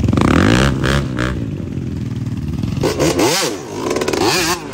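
Dirt bike engine revved hard in sharp bursts, its pitch climbing in the first second and then rising and falling quickly several times near the end, as in roosting mud with the rear tyre.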